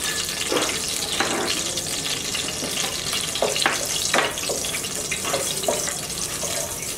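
Whole cardamom pods, cinnamon pieces and a bay leaf sizzling in hot oil in a steel pan: a steady frying hiss with sharp crackles and pops scattered through it. In the second half a wooden spatula stirs the spices against the pan.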